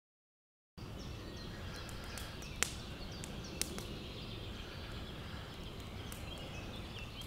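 Dead silence for a moment, then steady outdoor background noise with faint bird chirps, broken by two sharp clicks about a second apart.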